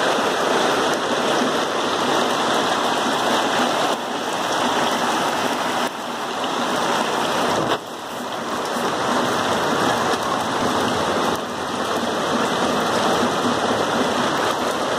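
Heavy rain falling steadily on leaves and wet ground.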